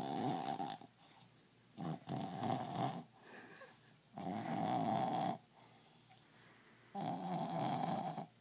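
Brussels griffon, a short-muzzled toy dog, snoring like a hog. One snore ends just under a second in, then three more follow, each lasting about a second and coming every two to three seconds.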